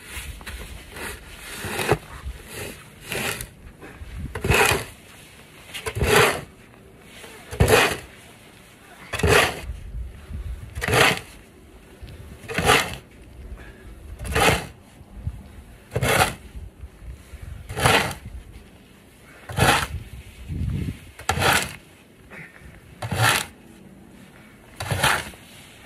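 Snow shovel being pushed and scraped along a cleared walkway through deep snow, about one stroke every second and a half.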